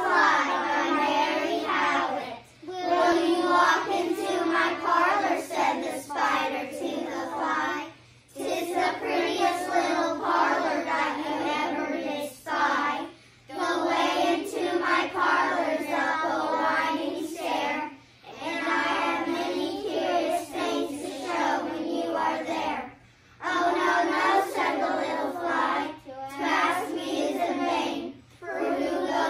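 A group of young children reciting a poem in unison, line by line, with brief pauses for breath between lines.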